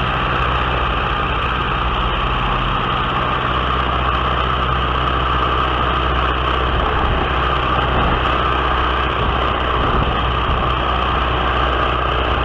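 Aircraft engine running steadily in flight, a constant drone with loud wind rush over the onboard microphone.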